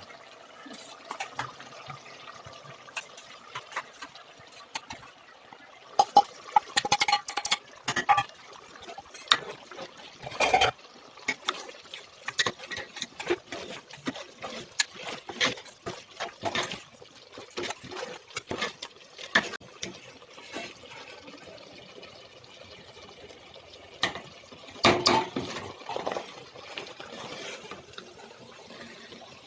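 Cooking a pot of mutton curry: a utensil clinks and scrapes against the pot in scattered knocks, with wet, sloshing liquid sounds, heaviest about six to eight seconds in, around ten seconds and again near twenty-five seconds.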